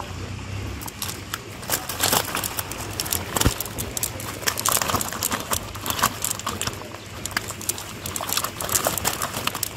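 Cast net and freshly caught fish being handled on grass and leaves: a busy run of irregular rustles, quick taps and slaps.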